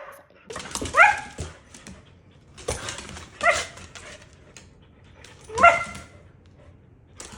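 Dog barking during play with another dog: three short, high barks about two seconds apart.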